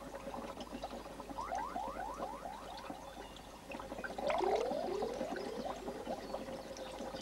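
Bubbling liquid in laboratory glassware: a run of quick rising bloops, louder from about four seconds in, over a faint steady tone.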